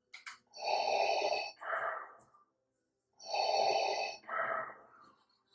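Darth Vader-style mechanical respirator breathing: two full breaths about three seconds apart, each a hissing in-breath followed by a shorter out-breath. A couple of faint clicks come just before the first breath.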